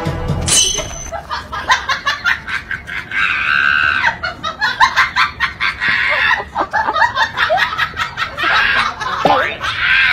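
A person laughing hard in quick, high-pitched bursts that break into shrieks.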